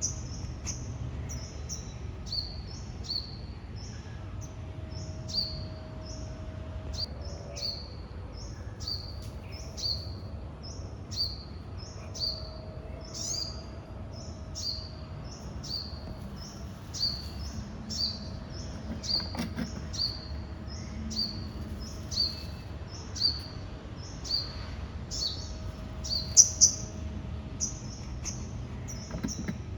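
A bird calling over and over: short, high chirps that each drop in pitch, a little more than one a second, with a couple of louder ones near the end, over a low steady background hum.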